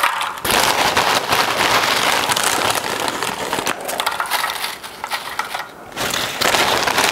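Lay's Classic potato chips being grabbed by the handful from their crinkly bag and dropped into a plastic container: a dense crackling and rustling of the chips and bag, with a brief lull about six seconds in.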